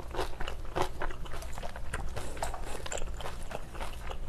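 Close-miked chewing of a mouthful of spicy braised pork rib stew: wet, irregular mouth clicks and crackles, several a second.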